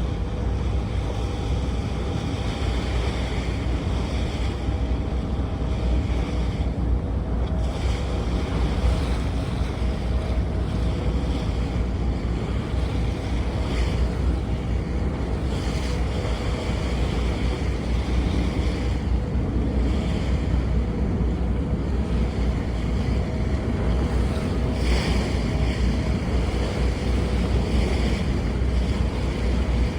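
Heard from on board a boat under way: wind buffeting the microphone over the boat's engine running steadily and water rushing past the hull, an unbroken, even noise with a faint steady hum.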